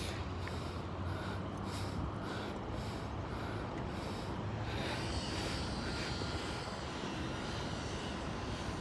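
A steady, low engine drone in the distance, with faint regular footsteps on pavement.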